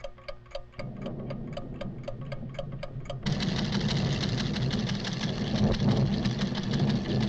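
Cartoon sound effect of delicate measuring instruments ticking rapidly, about four to five ticks a second, while a low rumble builds from about a second in. A little after three seconds the ticking stops and a loud, dense rumble takes over: the volcano's tremors growing.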